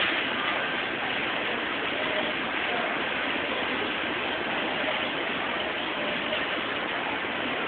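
Steady background noise of a large store: an even hiss and hum with no distinct events standing out.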